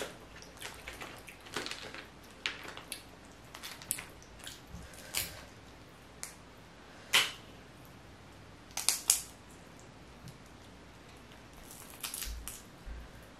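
Sauce-coated crawfish being cracked and peeled by hand: scattered sharp shell cracks and wet clicks, the loudest about seven seconds in and a quick pair about nine seconds in.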